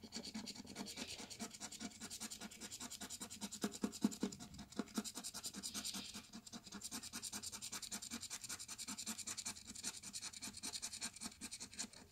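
A plastic scraper scratching the latex coating off a scratch-off lottery ticket in rapid, steady back-and-forth strokes.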